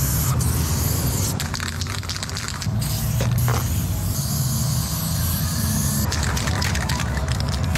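Aerosol spray paint can hissing as lines are sprayed onto a wall, the hiss coming and going, over background music with a low bass line.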